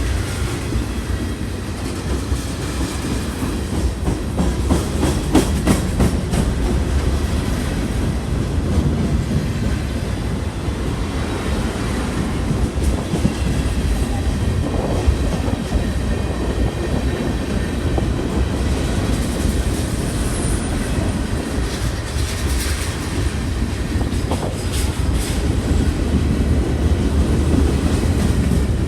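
A train rolling past, its wheels clacking over the rail joints over a steady low rumble.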